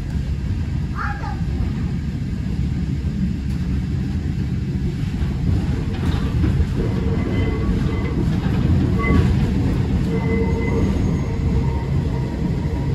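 Tram running on its rails: a steady low rumble of the car and wheels, with a faint high whine coming and going in the second half.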